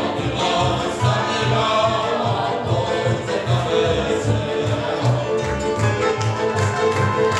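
Slovak folk string band playing a lively tune on fiddles, double bass and cimbalom, with a regular bass beat. A man sings near the start before it turns instrumental.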